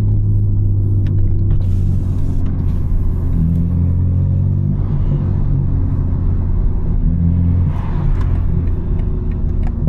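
BMW M4's S58 twin-turbo inline-six running at low revs while driving, a steady low drone heard from inside the cabin, its pitch shifting slightly a few times with the throttle.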